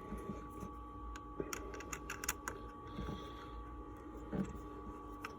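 Light clicks and taps of small objects being handled, a quick cluster about two seconds in, over a faint steady hum.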